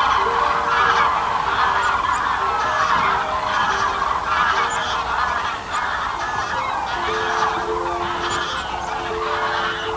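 A flock of common cranes calling, a dense continuous chorus of many overlapping calls.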